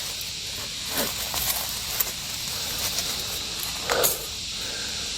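Steady high insect chorus in the woods, with a few short crackles and snaps of leaf litter and twigs underfoot, the loudest about four seconds in.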